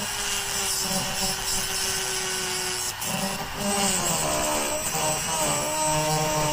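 Dremel rotary tool with a thin abrasive cutoff wheel cutting through a rusted steel screw head. The motor whines steadily at first, then its pitch sags and wavers about four seconds in as the wheel bogs under load.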